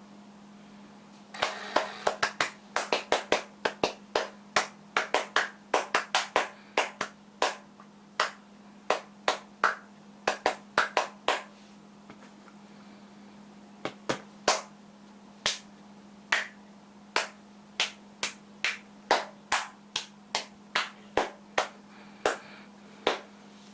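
Dozens of sharp hand claps and snaps in irregular runs, quick and dense at first and more spaced out later, made to trigger a PC case's sound-reactive lighting. A steady low hum sits underneath.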